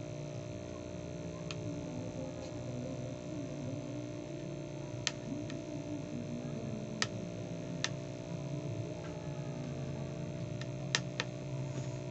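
A metal spoon clicking against a ceramic plate now and then while porridge is scooped, half a dozen scattered sharp clicks, over a steady low hum.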